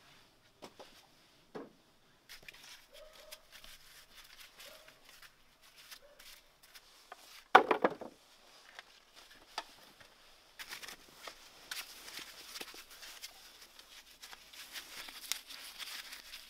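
Potatoes being sorted by hand and tossed into wooden slatted crates, knocking against the wood and each other. There is one louder knock about halfway through, and a denser run of small knocks and rattling in the last third.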